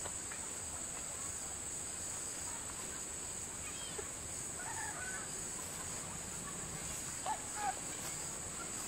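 Faint rural outdoor ambience: a steady high-pitched insect drone, with a few short bird calls about five seconds in and again near the end.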